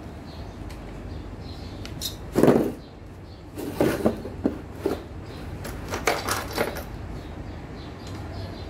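Knocks and clatter of metal parts and tools being handled on a petrol lawn mower's engine: one loud knock about two and a half seconds in, a run of clatters around four seconds in and another around six seconds in, over a low steady hum.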